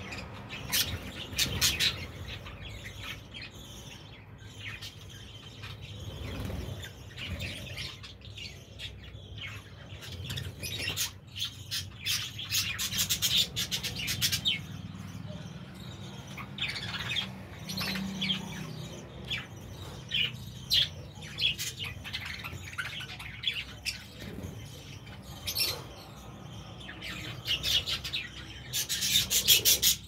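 A flock of budgerigars chirping and chattering, in bursts of quick high chirps about a second in, again around the middle and near the end.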